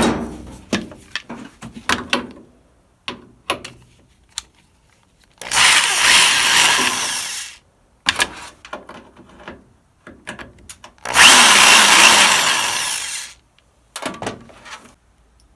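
A power drill backing screws out of a plasma TV's back panel, in two runs of about two seconds each, with clicks and knocks of handling between them.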